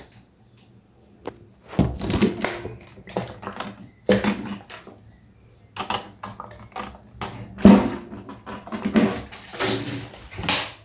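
Irregular knocks and clatter of hard objects being handled, in bunches with short gaps, sounding like a small room.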